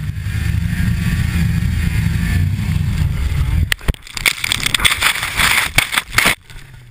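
Polaris 700 RMK snowmobile's two-stroke engine running hard under load, then dropping away about three and a half seconds in as the sled tips and crashes. A jumble of knocks and rushing snow noise follows for a few seconds as snow sprays over the machine, then it goes quieter near the end.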